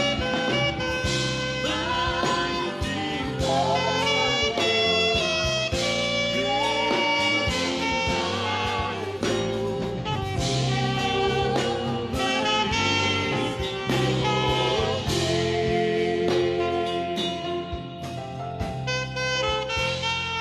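Saxophone playing a slow worship melody of long held notes with vibrato over a backing track with bass and sustained chords.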